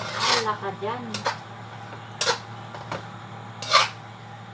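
Kitchen utensils knocking against cookware: three sharp clinks, the loudest near the end, over a steady low hum, with a voice in the first second.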